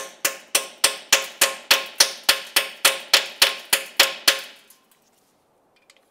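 Steady, evenly spaced sharp metallic taps, about three and a half a second, each ringing briefly, from tool work on the rusted rear differential fill plug; they stop about four and a half seconds in.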